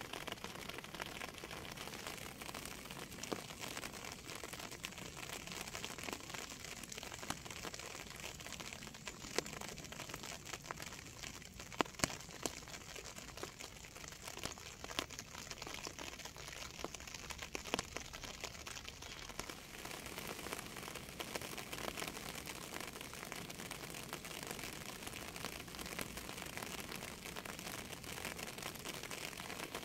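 Steady rain: an even hiss of falling water with many small drop ticks, and a few louder, sharper drop hits standing out now and then.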